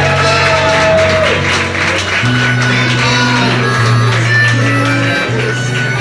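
Live band music: acoustic guitar over held bass notes that change every second or two, with a melody line trailing off about a second in and audience noise beneath.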